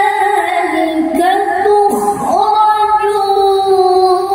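A man reciting the Quran in the melodic tilawah style, holding long high notes. His voice turns in short ornamented glides about one and two seconds in, then settles back on a steady held note.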